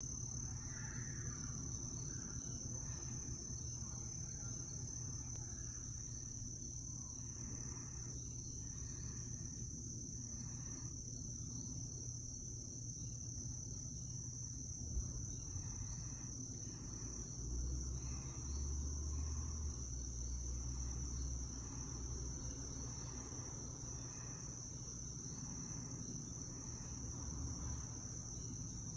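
Insects trilling: one steady, unbroken high-pitched tone over a low background rumble. A low rumble swells for about two seconds past the middle.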